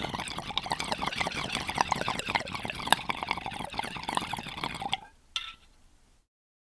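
Water in a bong bubbling hard as smoke is drawn through it: a dense, rapid run of gurgling pops that starts abruptly and stops after about five seconds. A single sharp click follows a moment later.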